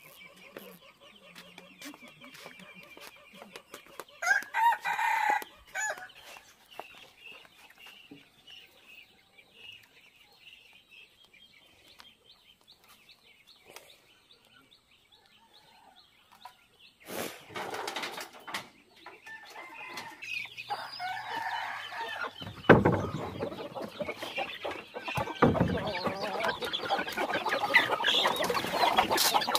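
Domestic chickens clucking, with a rooster crowing once about four seconds in. After a quieter stretch there is a thump, and then the clucking of the flock grows dense and busy toward the end.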